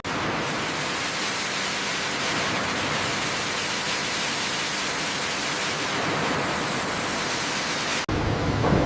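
Steady hissing noise at an even level. It drops out abruptly for an instant about eight seconds in, then returns.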